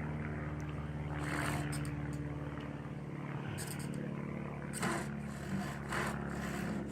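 Tenon saw cutting wood by hand in slow, irregular strokes, each stroke a short rasping swish. Under it runs a steady low mechanical hum.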